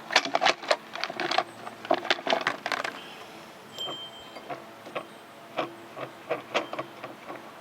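Small metal chainsaw clutch parts and tools clinking and tapping as they are handled: a quick run of clicks over the first three seconds, then scattered taps.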